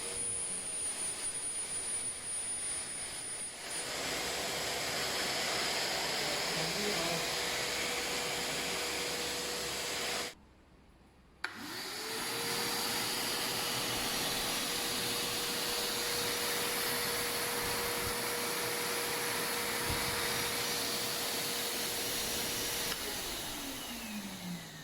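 COCCA 30-litre wet and dry vacuum cleaner running with a steady whine. It is switched off about ten seconds in and switched back on a second later, its motor whine rising to speed. Near the end it is switched off again and the whine falls as the motor winds down.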